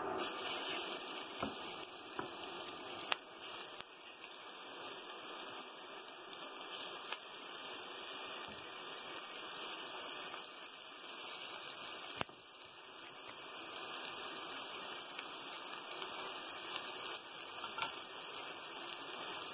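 Raw ground-beef patties sizzling in hot oil in a non-stick frying pan. The sizzle starts as the first patty goes in and runs steadily while more are laid in, with a few sharp clicks.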